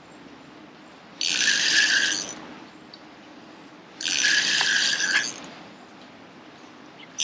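Fixed-spool fishing reel being wound in short spells, a whirr about a second long every three seconds or so.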